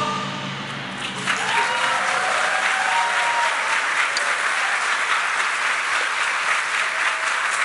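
Large audience applauding after a choral performance. The clapping swells in about a second after the last sung chord's echo fades, then holds steady and dense, with a few voices calling out as it begins.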